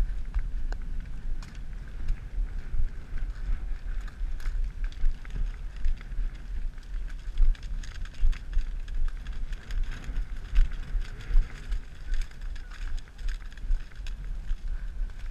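Wind and jostling rumbling on a camera carried by a rider on a moving horse, with scattered clicks and crunches of hooves on corn stubble.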